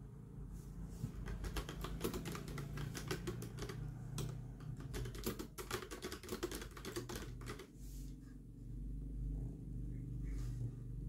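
Fast typing on a keyboard with round typewriter-style keycaps: a dense run of key clicks that stops about three quarters of the way through. A low steady hum runs underneath.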